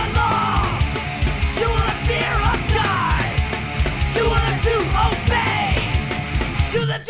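Punk rock record playing loud: a band of distorted electric guitars, bass and drums.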